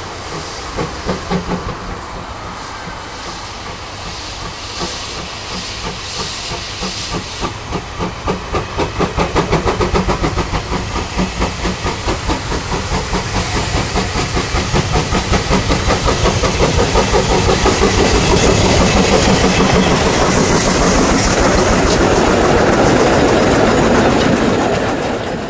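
Metre-gauge steam tank locomotive pulling away with a train: hissing steam and exhaust chuffs that start slow, then quicken and grow louder as it passes, followed by the coaches rolling by.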